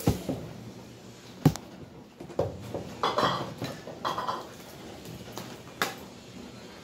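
Metal dog chain clinking and rattling on a concrete floor as the chained dog moves, with a few sharp clanks. The loudest clank comes about one and a half seconds in, and a cluster of jingling follows in the middle.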